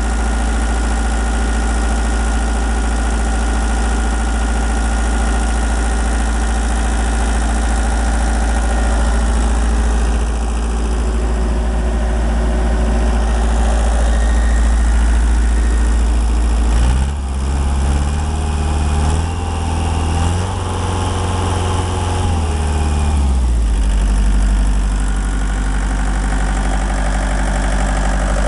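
Bobcat 863 skid-steer's Deutz four-cylinder diesel engine idling steadily, revved up about two-thirds of the way through for some six seconds, then settling back to idle.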